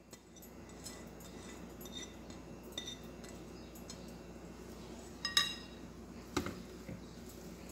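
A metal potato masher clinking against a glass mixing bowl as it starts mashing boiled potatoes and cooked rice: a few faint ticks, then two sharp clinks a little past halfway.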